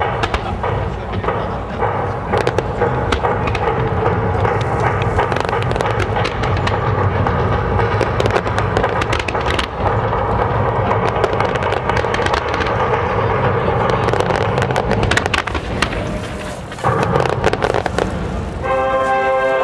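Fireworks bursting and crackling in a dense barrage, heard over music. Near the end a held pitched tone comes in.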